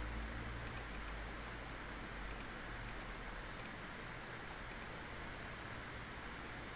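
Computer mouse clicking: a scattering of light clicks, several in quick pairs, over a steady hiss.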